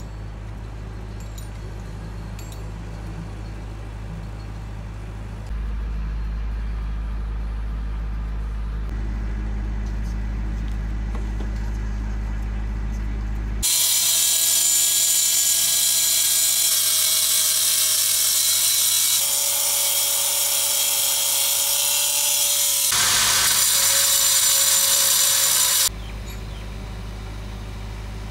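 A handheld angle grinder cutting a sawn bluestone panel: a loud, high-pitched grinding whine that comes in about halfway through, changes pitch twice as the cut goes on, and stops abruptly about twelve seconds later. Before and after it, a steady low rumble.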